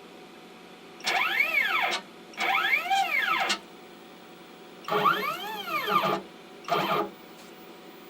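CNC router stepper motors driving the machine's axes in four short moves, each a whine that rises in pitch and falls back as the motors speed up and slow down.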